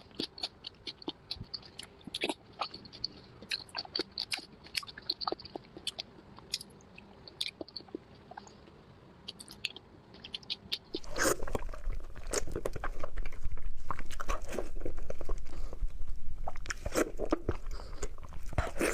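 Close-miked chewing and biting of braised five-spice pork: wet mouth clicks and smacks. About eleven seconds in it becomes much louder and closer, with a low rumble under the chewing.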